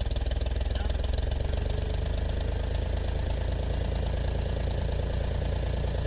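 Cat 304 mini excavator's diesel engine running steadily at an even speed, heard close up.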